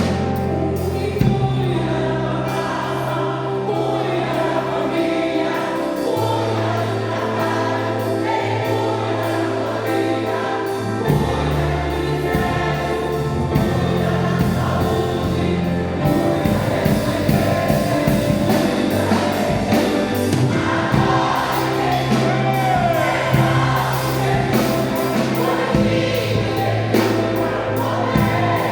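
Choir singing a gospel hymn over band accompaniment with a steady bass line, the backing growing fuller and more rhythmic about halfway through.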